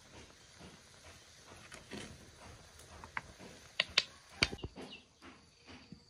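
A handful of sharp clicks and knocks at a wood cooking fire under a pan of boiling soup, the loudest cluster about four seconds in.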